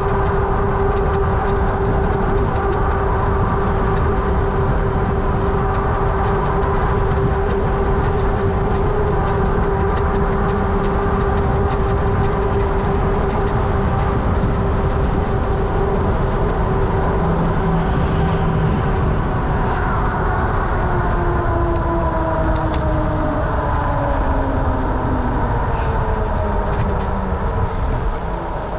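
Fat-tire electric bike in motion: a steady whine from its 750 W motor and tyres over a low rumble. The whine's pitch falls from about twenty seconds in as the bike slows.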